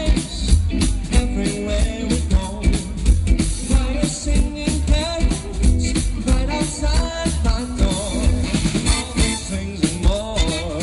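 A swing-style little big band playing live, with drum kit and bass keeping a steady beat under wavering melody lines.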